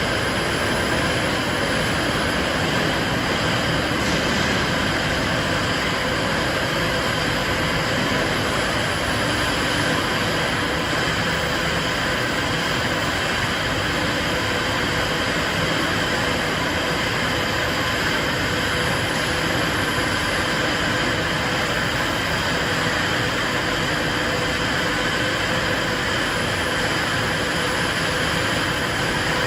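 Steel grating production machine running with a steady mechanical noise and a constant hum; there are no separate strokes or impacts.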